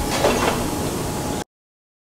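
Steady workshop background noise with a brief louder sound about a quarter of a second in; the sound then cuts off to complete silence about two-thirds of the way through.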